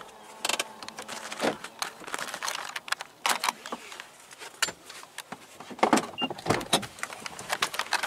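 Clicks, knocks and rustles of someone climbing out of a parked car, with the camera being handled and the car door opening.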